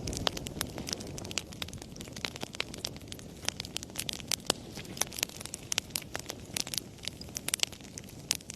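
Wood fire in a fireplace crackling, with many sharp irregular pops and snaps over a low rumble of burning.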